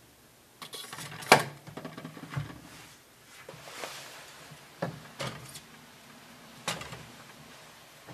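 Clicks and light knocks of kitchen things being put in place: a serrated bread knife slid into a clear plastic knife stand, then a metal tin set down on a stainless steel wire shelf. The sharpest click comes about a second in.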